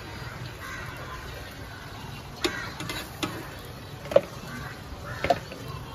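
A few light clicks and taps of cooking utensils at a flat dosa griddle, scattered over a low steady hum.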